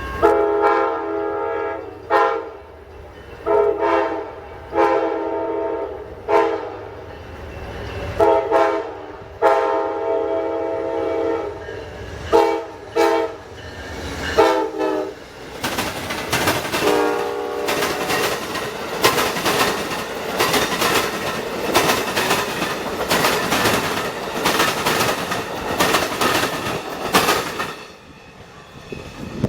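Diesel locomotive's multi-chime air horn sounding a series of long and short blasts, then the train passing with its wheels clacking in a steady rhythm over the rail joints and diamond crossing.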